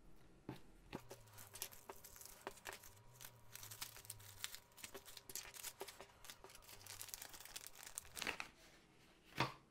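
Clear plastic wrap crinkling and tearing as it is pulled off a bundle of bagged diamond-painting drills: a run of quick, sharp crackles, with the loudest crack near the end.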